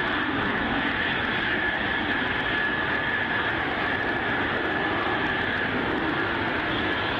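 F-35A Lightning II fighter's F135 turbofan engine running at taxi power: steady jet engine noise with a high whine held on one pitch.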